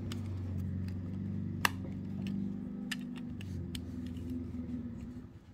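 Plastic Lego bricks being handled, giving a few sharp clicks, the loudest about a second and a half in, over a steady low hum that fades out near the end.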